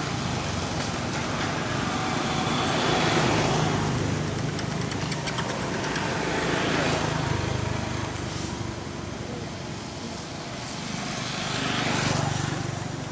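Outdoor background noise that swells and fades about three times, with a steady low hum beneath, like road traffic passing.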